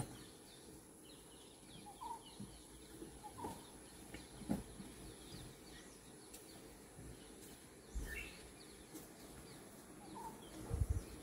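Quiet outdoor ambience with faint birds calling: many short high chirps and a few louder calls. A couple of low thuds come near the end.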